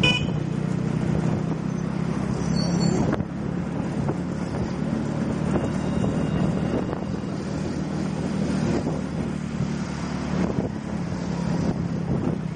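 Riding on a motorcycle taxi in city traffic: a steady low hum of the bike and the road, with wind noise on the microphone and a single knock about three seconds in.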